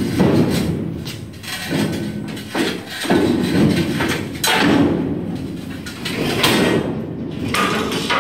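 Steel rotisserie leg of 2x3 square tubing being slid together, metal scraping and clanking against metal in a series of rough bursts about every second or so.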